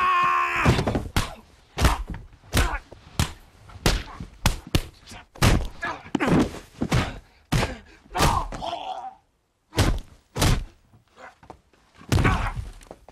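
Movie fistfight: a quick run of punches and thuds, about one or two blows a second, with pained grunts and groans between them and a yell at the start.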